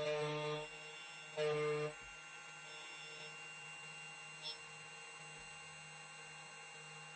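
2M2 Tank CNC key cutting machine cutting a GM39 key blank: a steady electric whine and hum, with two louder whining surges in the first two seconds.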